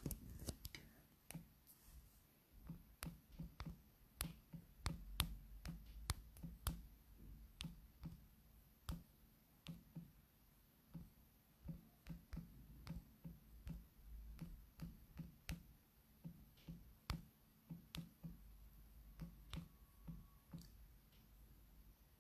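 Irregular soft taps and clicks of fingertips on a phone's touchscreen, picked up through the phone's own microphone with a dull thump at each tap. They come one to three a second, with short pauses.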